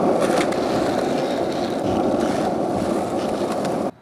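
Skateboard wheels rolling over pavement: a steady, gritty rumble with a few light clicks near the start. It cuts off abruptly just before the end.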